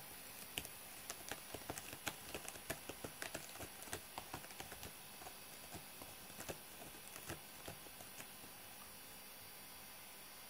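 Irregular light clicks and crackles, several a second, from a cat working at a corrugated cardboard scratcher with its head down and a paw on it; the clicks thin out and stop about eight seconds in.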